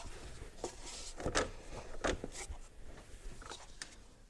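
Scattered light scrapes, clicks and knocks of plastic and rubber as the air-intake duct is worked loose by hand from the throttle body.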